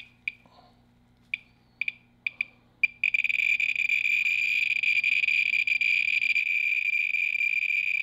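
A Thermo Scientific RadEye B20 survey meter's audible count signal. At first it gives sparse, irregular high chirps. About three seconds in they merge into one continuous high tone as the count rate climbs close to an americium-241 source.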